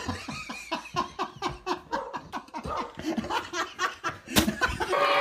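Hearty laughter in quick repeated bursts, about three or four a second, with a sharp knock about four seconds in.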